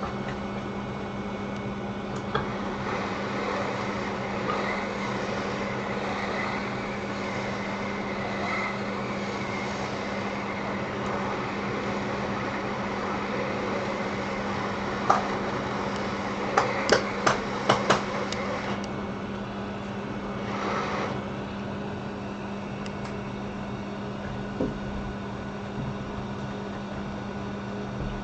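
Steady hum of bench equipment with a fan-like rush. About fifteen seconds in comes a sharp click, then a quick cluster of small metal clicks, as a scoop tool pries the metal shield off an iPhone SE logic board.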